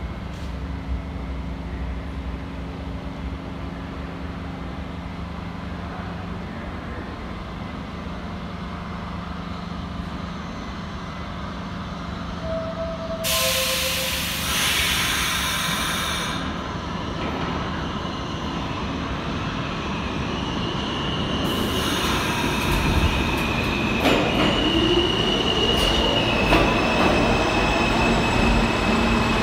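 New York City subway train approaching through the tunnel and pulling into the station: a steady rumble that grows louder, a loud hiss about halfway through, then high-pitched squealing and a rising whine as it comes alongside the platform.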